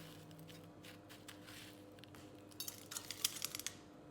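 Light clicks and taps of breaded chicken pieces being handled and set on a metal air-fryer rack, with a quick rattling run of clicks about two and a half seconds in.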